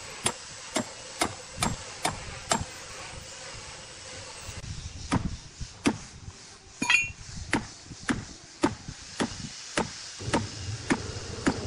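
Hammer blows on metal staples being driven into the top of a large log, at about two a second. After six blows comes a pause of about two seconds, then a longer run of blows, one of them near the middle giving a brief metallic ping.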